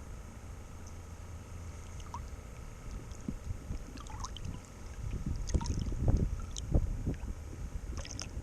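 Water lapping and splashing around a small boat, with a low wind rumble on the microphone. The splashes come more often and louder about halfway through.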